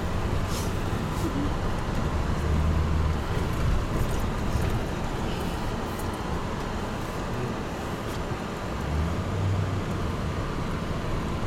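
Car driving on a snow-covered road, heard from inside the cabin: steady road and tyre noise with a low engine hum that swells now and then.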